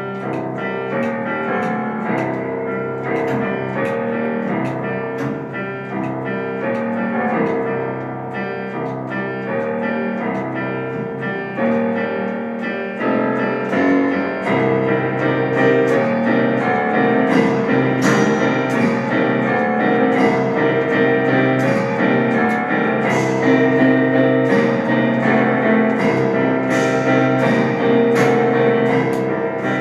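Improvised ensemble music led by a keyboard playing sustained chords, growing louder about halfway through, with regular sharp hits coming in over the second half.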